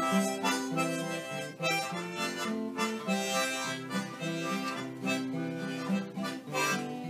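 Harmonica playing a tune, its notes changing two or three times a second, often with several notes sounding together.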